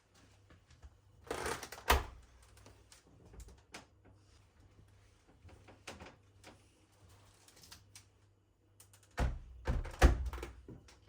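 Scattered light clicks and taps of objects being handled, with two clusters of louder knocks about a second in and near the end.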